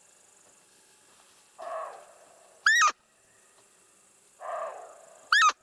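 A roe deer call (Butov call) blown twice, each time a short, loud squeak that rises and falls in pitch. About a second before each squeak comes a fainter, harsh call from further off.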